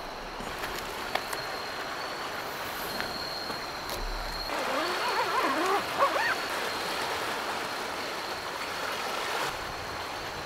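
Sea waves washing steadily against the shore, a continuous rushing wash. A few short wavering cries come in about halfway through.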